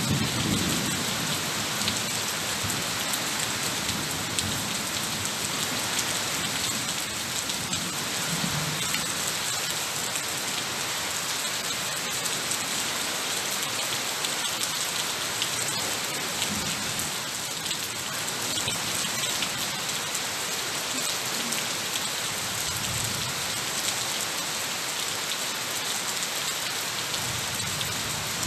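Heavy rain falling steadily on foliage and surfaces, a dense even hiss, with low rumbles now and then.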